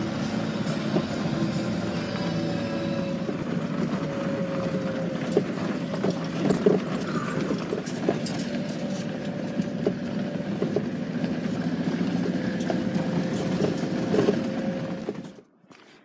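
Vehicle driving along a gravel road, heard from inside the cab: steady engine and tyre noise with scattered knocks and rattles over the stones and bumps. It cuts off suddenly near the end.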